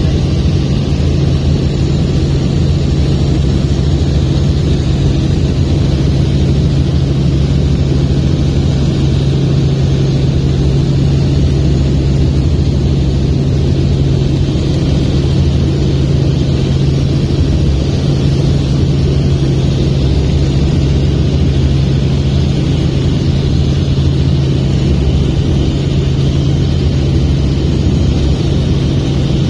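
Helicopter engine and rotor noise heard from inside the cabin: a loud, steady drone with a constant low hum that does not change.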